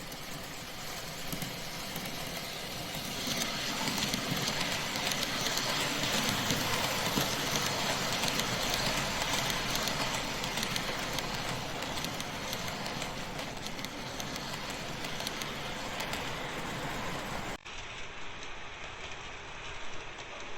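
N-gauge model E231-0 series train running on its track: a steady noise of motor and wheels on the rails that grows louder about three seconds in. The sound changes abruptly near the end.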